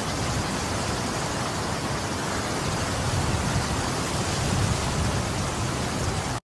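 A steady, loud hiss like static, with an uneven low rumble underneath; it cuts off abruptly at the end.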